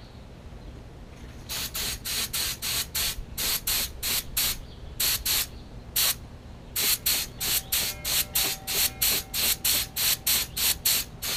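Air-fed paint spray gun fired in short trigger pulls, a rapid series of hisses about three or four a second with a few brief pauses, starting about a second and a half in. It is dusting gloss black acrylic enamel onto the edges of small pins.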